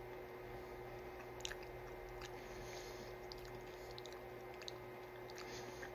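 Faint chewing of a chocolatey cereal-and-marshmallow bar, with scattered small crunchy clicks over a steady faint hum.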